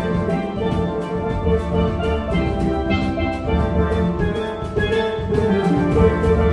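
Steel band playing: many steel pans in several ranges, from high melody pans down to bass pans, ringing together over a steady drum beat.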